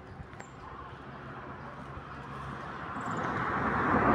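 A passing vehicle's rushing noise swells over the second half, growing loudest at the end.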